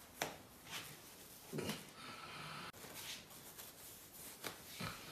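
Faint rustling and rubbing of cotton socks being pulled on over the feet, with a few soft knocks and scuffs of slippers on a tiled floor. A short hiss about two seconds in cuts off suddenly.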